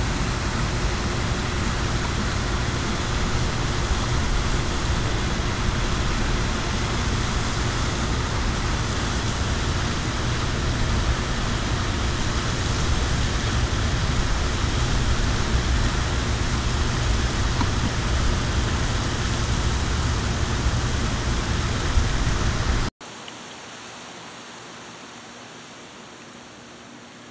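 Steady loud rushing noise with a deep rumble underneath. About 23 seconds in it cuts off abruptly to a much quieter steady hiss with a faint high-pitched tone.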